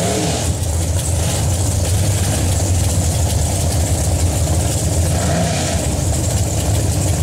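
Drag-race car engines idling at the starting line, a loud, steady low rumble with no revving or launch.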